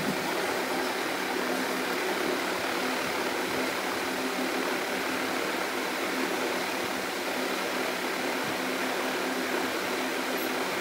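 Steady mechanical hum with an even hiss, like a running fan.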